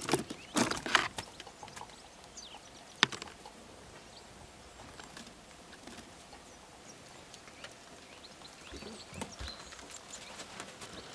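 A few sharp knocks and clicks, clustered in the first second, then a single loud knock about three seconds in, with faint high bird chirps in between and a few softer knocks near the end.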